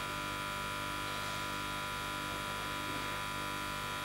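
Steady electrical hum with a high whine and hiss, constant in pitch and level throughout.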